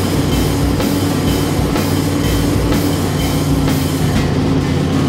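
Background rock music with drums and distorted guitar at a steady beat.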